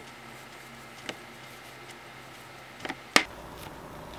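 Quiet food-prep handling noises on a wooden cutting board: a few light taps and clicks, then one sharp knock a little after three seconds in, as egg wash is brushed on from a glass cup and the bread is rolled.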